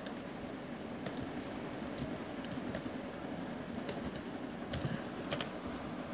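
Computer keyboard typing: a handful of scattered, irregular key clicks over a faint steady hiss.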